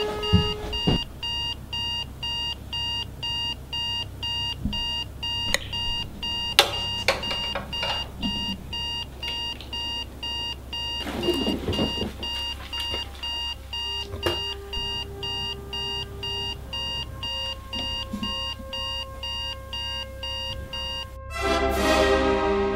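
Electronic alarm clock beeping in a steady, high-pitched, evenly repeating pattern, about two beeps a second. A few knocks and a short rush of noise come in about halfway through. The beeping cuts off suddenly near the end as music starts.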